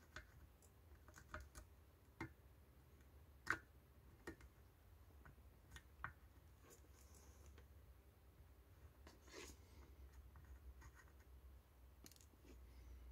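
Faint, scattered small clicks and scrapes of a soldering iron tip working on a circuit board while small surface-mount transistors are desoldered and replaced, with one sharper click about three and a half seconds in. A faint low steady hum lies underneath.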